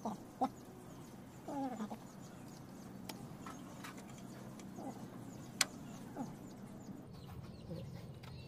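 Birds chirping faintly in the background, with a few sharp metallic clicks from hands and tools on a drum brake's parking-brake shoes and springs; the loudest click comes a little past halfway.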